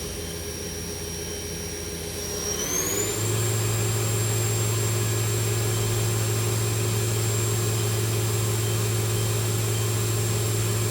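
Spindle of a Southwestern Industries Trak LPM CNC vertical machining center running at 5,000 RPM with a steady high whine, then speeding up about two and a half seconds in and holding the higher speed, its whine higher and louder.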